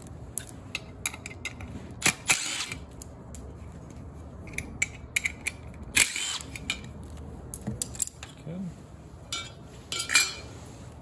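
Cordless drill-driver running in three short bursts, about four seconds apart, to back out the screws holding a furnace inducer motor's mounting plate. Small metal clicks and clinks of the screws and parts come in between.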